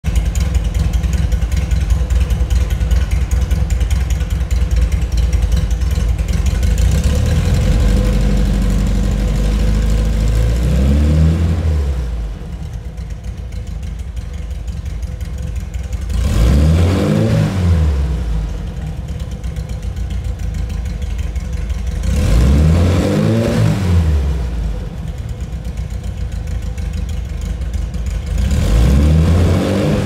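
Air-cooled VW Type 1 flat-four engine, about 2 litres (90.5 mm bore × 78.5 mm stroke) with a W130 camshaft and Weber 48 IDA carburettor, running through a stainless Sebring-style exhaust. It idles at first, then the throttle is blipped four times about six seconds apart. Each time the revs climb and fall back to idle, and the first rev builds up more slowly than the rest.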